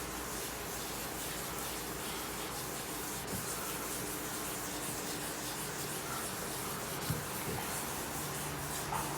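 600-grit sandpaper wet-sanding a spray-painted car hood with soapy water, a steady rubbing to knock down spots of excess paint.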